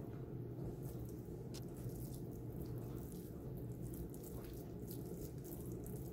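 Faint, wet squishing of raw ground sausage meat being pressed and folded by hand around a hard-boiled egg, over a steady low hum.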